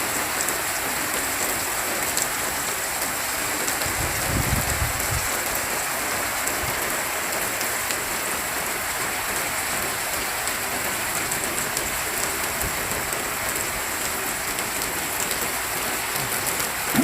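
Heavy rain pouring steadily, with a brief low rumble about four seconds in.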